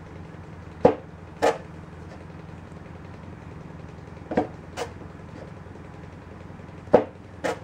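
Sandpaper strip swiped between a guitar's set-neck heel and the body pocket, taking wood off the neck joint: short, sharp strokes in three pairs about half a second apart, over a steady low hum.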